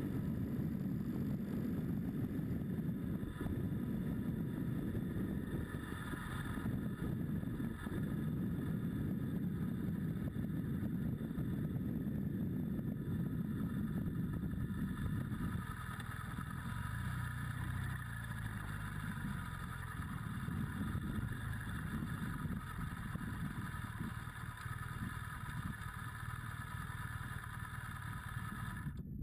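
Adventure motorcycle engine running under way with road and wind noise. About halfway through the rumble drops as the bike slows, and it runs at idle once stopped at the roadside.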